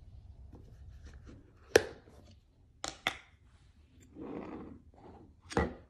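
Espresso-making gear, a metal portafilter and filter basket, being handled and set down on a countertop: four sharp knocks and clicks, with a short scraping rub between the last two.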